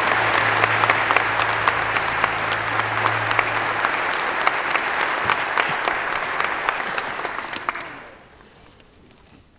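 Audience and musicians applauding, many hands clapping, dying away about eight seconds in.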